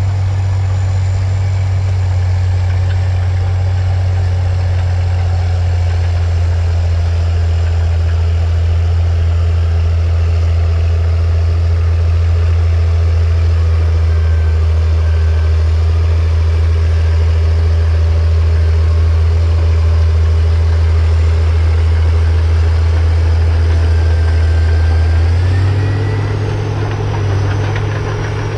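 A large engine running steadily with a loud, deep hum. About 25 seconds in its pitch shifts and the sound turns rougher.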